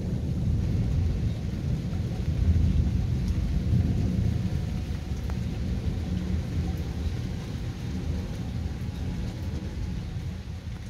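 Rolling thunder: a long, low rumble that swells about two seconds in and then slowly dies away.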